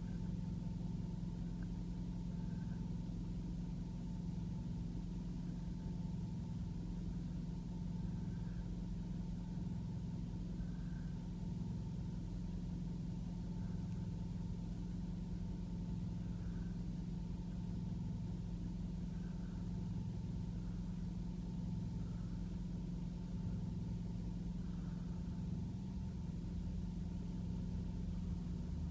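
Diesel railcar engine idling steadily, a low even hum with a thin steady higher tone over it and no change in speed.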